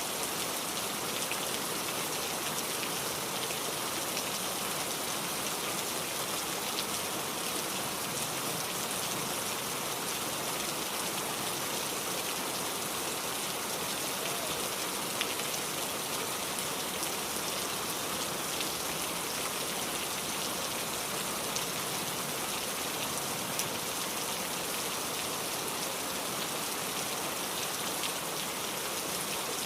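Heavy rain falling steadily: an even hiss of rain on the ground and vegetation, with a few sharper single drop ticks.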